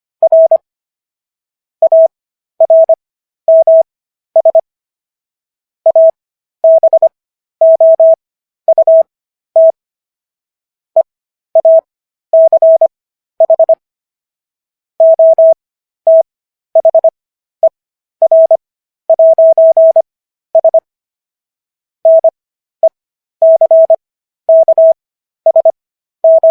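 Morse code practice: a single pure, mid-pitched tone keyed on and off in short dits and longer dahs. Characters are sent at 25 words per minute with wide Farnsworth gaps between them, for an overall speed of 15 words per minute.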